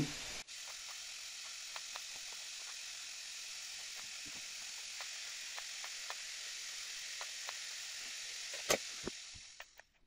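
Washing machine heating element under power in hot Calgon descaling solution, hissing steadily as the water heats toward 70 °C, with faint scattered ticks. There is a sharper click near the end.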